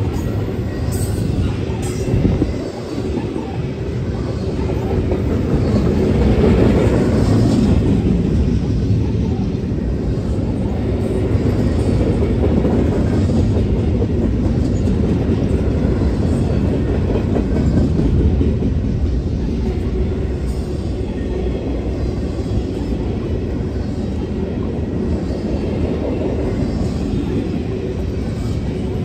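Double-stack intermodal freight train rolling past: the steady noise of its well cars' steel wheels running on the rails.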